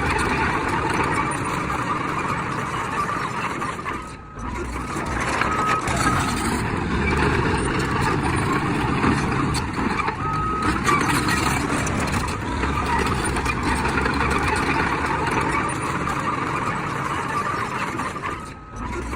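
Heavy diesel earthmoving machinery running steadily, with a reversing alarm beeping a few times. The sound drops out briefly about four seconds in and again near the end.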